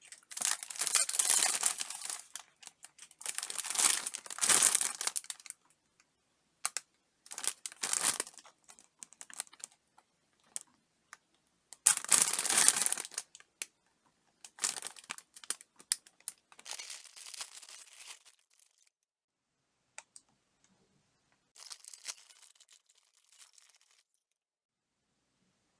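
Cracker package wrapper being torn open and handled, crinkling in several irregular bursts with short pauses between them.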